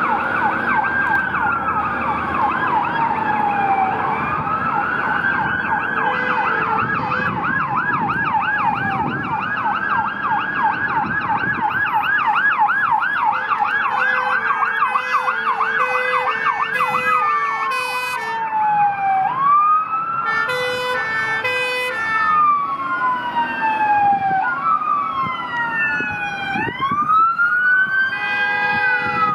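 Emergency sirens of fire brigade vehicles responding to a call, cycling between a slow rising-and-falling wail and a fast yelp, with more than one siren overlapping near the end. Short blasts of a horn cut in several times in the middle and again at the end.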